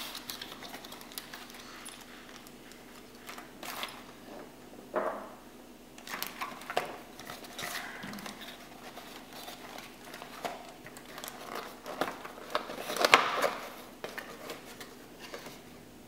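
Parts being packed into a cardboard box by hand: plastic bags rustling, cardboard flaps folding shut and scattered small knocks, with the loudest burst of handling about three-quarters of the way through.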